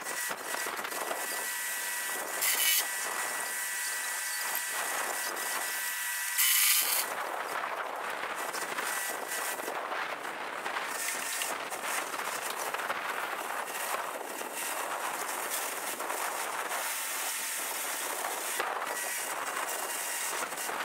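Work-site machinery noise: a steady high hiss with faint steady tones through the first third, and two brief louder bursts about two and a half and six and a half seconds in.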